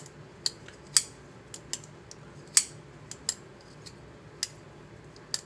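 Vosteed Mini Nightshade crossbar-lock folding knife being flicked open and closed, with about ten sharp metallic clicks as the blade snaps out and shut and the crossbar lock engages. The opening clicks carry a slight ping from the newly fitted stiffer lock springs.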